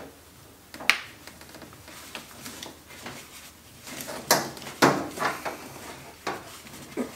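Plastic washing-machine drain hose sections being twisted and forced together into a tight push-fit joint: rubbing and creaking handling noise with a few sharp clicks and knocks, the loudest about four to five seconds in.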